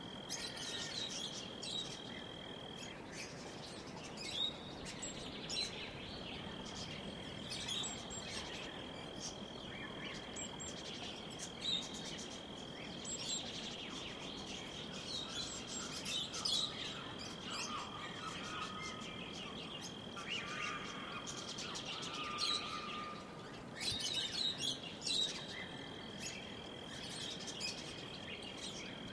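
Outdoor bird chorus: many birds chirping and calling in short scattered notes, over a steady high-pitched tone that drops out twice.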